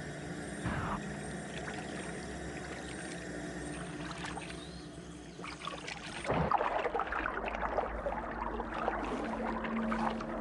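Shallow swamp water sloshing and splashing as a large reptile moves through the shallows, louder from about six seconds in, over a steady quieter background before that.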